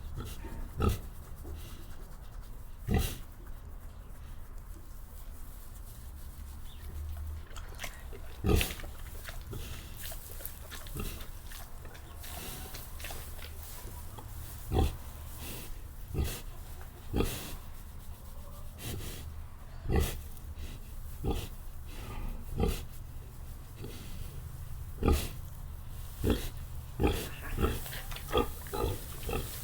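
Pig grunting: short, separate grunts at irregular intervals, coming closer together near the end, over a steady low hum.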